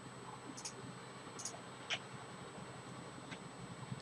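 Computer mouse button clicks: a few short clicks, some in quick press-and-release pairs, roughly one every half second to a second, over faint room noise.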